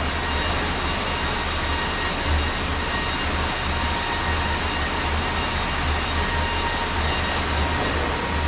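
Sawmill blade cutting through a large red oak log, with the mill's engine running steadily underneath. The cut gives a loud, continuous high-pitched whine, and the high part of the sound eases off near the end.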